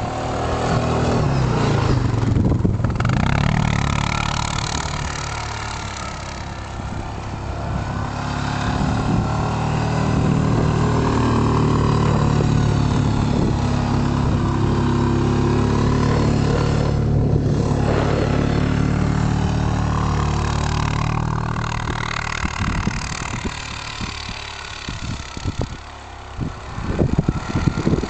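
Quad bike engine running, its pitch rising and falling as it revs up and eases off. It quietens in the last few seconds, where irregular low knocks and thumps come in.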